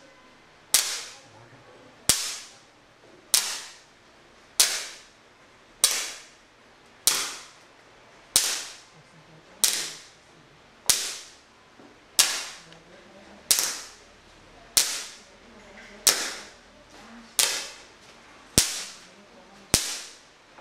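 Electric igniters on the receivers of a 20-channel wireless fireworks firing system going off one after another in sequential mode. Each is a sharp pop with a short fizz, about one every second and a quarter, sixteen in all.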